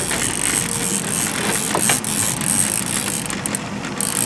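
Fishing reel being cranked, its gears and ratchet making a steady clicking whir as a hooked fish is reeled in.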